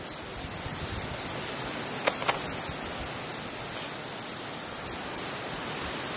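Steady outdoor background hiss with a constant high-pitched shrill tone over it, and two faint ticks about two seconds in.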